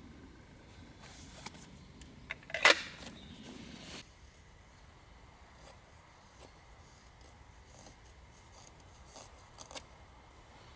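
Split dry sticks and a bundle of wood shavings being handled and laid onto a fire lay: one sharp wooden clack about two and a half seconds in, then faint rustling with a few light clicks near the end.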